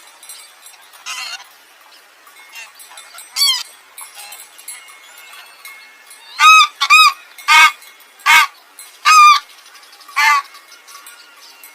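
A farm bird calling: a few faint calls early on, then a quick series of about six loud, short calls, each rising and falling in pitch.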